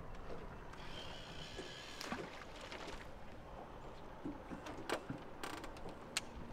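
Fishing line whirring off the reel for about a second after a cast, then a few scattered clicks and knocks as the reel is engaged and the rod is set into a boat rod holder, over a low rumble of wind.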